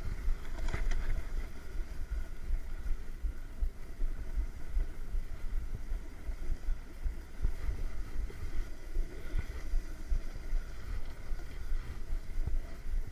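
Wind buffeting and rumbling on a body-mounted action camera's microphone during a downhill run on groomed snow, over the steady hiss and scrape of the ride sliding across the snow. A brief knock about a second in.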